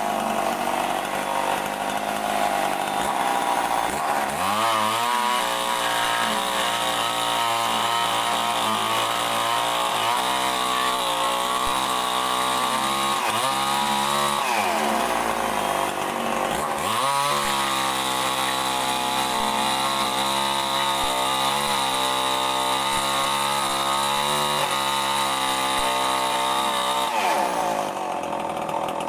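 Chainsaw ripping lengthwise through a thick mahogany beam, running steadily under load. Its engine note sags and climbs back up twice along the way, then falls away near the end.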